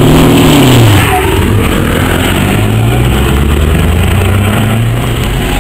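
Heavy truck diesel engine running hard. Its pitch rises and then falls within the first second, and it then carries on at a lower, roughly steady pitch.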